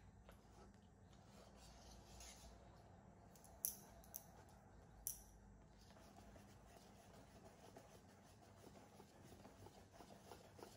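Wire whisk stirring batter in a stainless steel bowl, faint. Three sharp metallic clicks of the whisk against the bowl's side come in the middle, the first the loudest.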